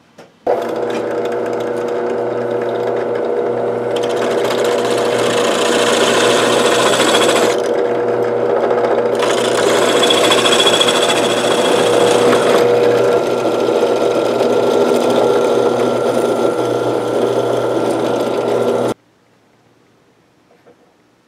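Drill press running and boring a hole through a wooden knife-handle block. The motor hums steadily and stops abruptly near the end, and louder cutting noise comes in two spells of a few seconds each as the bit bites into the wood.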